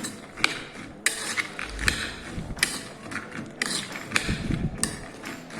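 A spoon stirring soaked chickpeas and chopped salad in a bowl: irregular clinks of the spoon against the bowl, about one every second, with the rustle of the mix between them.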